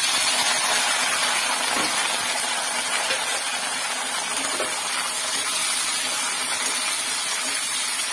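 Green chillies sizzling in hot mustard oil in a metal kadhai, a steady hiss just after they go into the oil.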